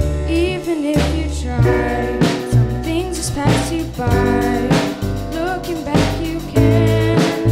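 Live band music: a drum kit keeps a steady beat under upright bass, electric guitar and keyboard, with a wavering melody line on top.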